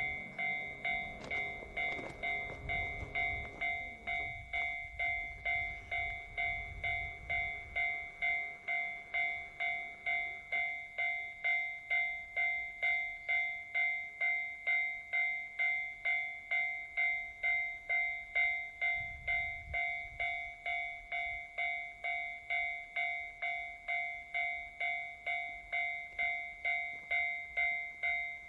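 Japanese level-crossing warning bell ringing steadily in an even, repeating ding-ding pattern of about two strokes a second. A low rumble lies under it for the first several seconds and again briefly about two-thirds of the way through.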